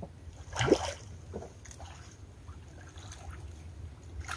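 A hooked tilapia splashing at the water's surface as it is reeled in to the rocky shore: one loud splash just under a second in, then smaller splashing and water movement.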